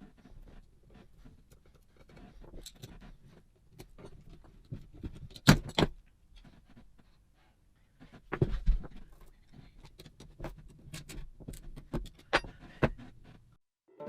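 Metal hand tools clinking and clattering as they are handled and set down, in irregular small clicks with a few louder clanks about five and a half and eight and a half seconds in.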